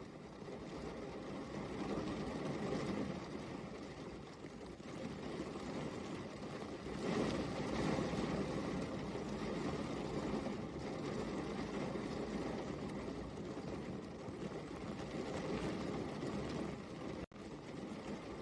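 Steady rain, an even hiss that swells and eases, louder around 7 to 9 seconds in, and cuts out for a split second near the end.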